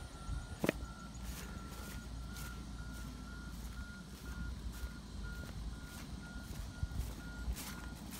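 Footsteps swishing through grass, with a sharp click about a second in. A faint high beep repeats evenly at about three a second in the background.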